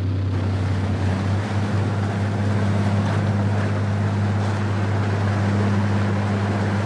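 Steady low drone of the boats' diesel engines, with water rushing between the two hulls as the bunker boat runs alongside the barge under way.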